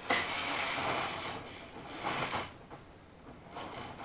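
Model train running on the layout's track in uneven spurts, with a rushing noise that fades, surges briefly midway, then dies away as the train falters. Its wheels are clogged and jamming, which the owner says these older trains always do.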